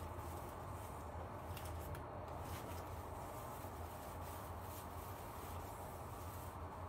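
Soft, irregular rustling and crinkling of shredded-paper packing filler and synthetic wadding as hands press them into a cardboard box, over a steady low hum.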